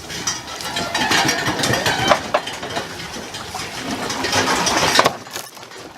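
An engine running, with a rough, rattly sound, stopping abruptly about five seconds in.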